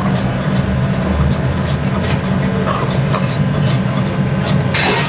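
A metal ladle scraping and knocking against an aluminium kadhai as thick masala is stirred and fried, in a run of short scrapes and clinks. Under it runs a steady low machine hum, and a brief louder burst of noise comes near the end.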